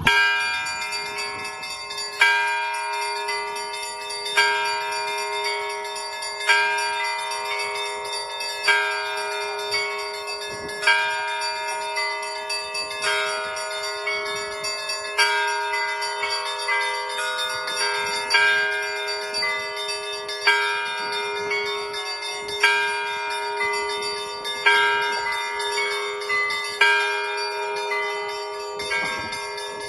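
Russian Orthodox bell ringing on a portable belfry: several bells of different sizes rung together in a repeating pattern. A heavy accent falls about every two seconds, with quicker strokes on smaller bells between, and the tones ring on over one another.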